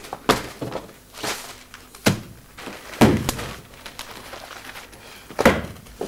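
A handful of separate dull knocks and thuds from objects being handled around office desks, the loudest coming near the end.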